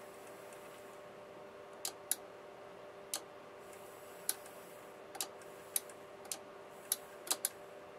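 Emotator 105TS rotator control box running, its indicator motor driving the gear train through a new rubber drive band: a steady hum with scattered light ticks, about ten of them at uneven spacing.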